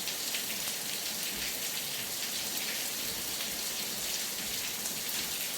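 Steady rain falling: an even hiss of many small drop ticks.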